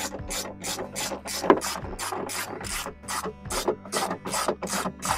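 Hand ratchet wrench clicking steadily at about four clicks a second as it turns a nut down, with one sharper knock about a second and a half in.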